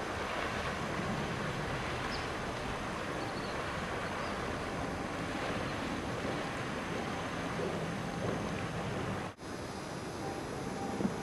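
Tsunami surge water rushing steadily into a tidal lagoon, mixed with wind on the microphone. The sound drops out briefly about nine seconds in, then carries on a little quieter.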